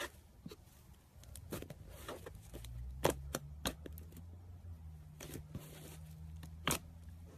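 Slime being squeezed and worked in the hands, giving irregular sticky clicks and pops, the loudest about three seconds in and again near the end, over a low steady hum.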